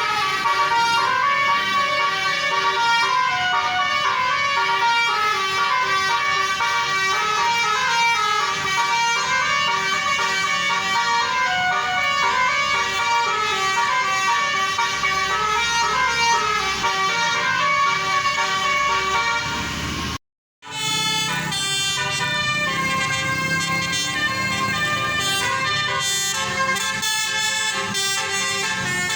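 Indonesian tour buses' 'telolet basuri' multi-tone musical horns playing a tune, loud pitched notes stepping up and down. About two-thirds through the sound cuts out for half a second, then the horn tones carry on.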